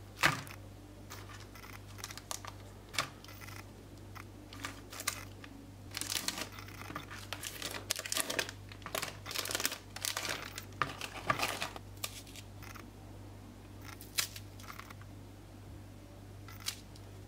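Metallized foil wrappers of chocolate wafer bars crinkling and tearing as they are opened by hand, with scattered sharp crackles that are busiest in the middle. There is a sharp click near the start and a faint steady hum underneath.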